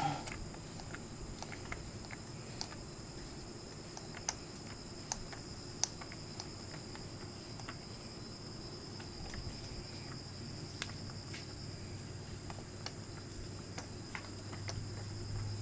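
Scattered light clicks and ticks as a Chain Monkey chain tensioner's threaded knob is turned by hand, snugging it up against a motorcycle drive chain, over a steady high-pitched background whine. A low hum swells near the end.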